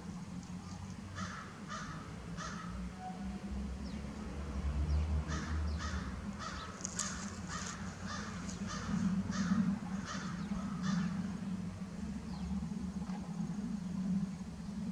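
A bird, crow-like, giving short harsh calls: three about a second in, then a run of about a dozen in quick succession through the middle. A low steady hum underneath.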